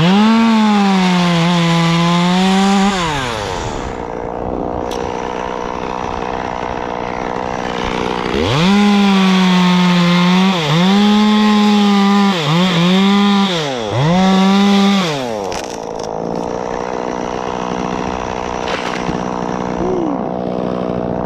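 Two-stroke chainsaw cutting through wood. It runs at full throttle for about three seconds, drops to idle, then revs up again for about seven seconds with a few brief dips in pitch, and falls back to idle near the end.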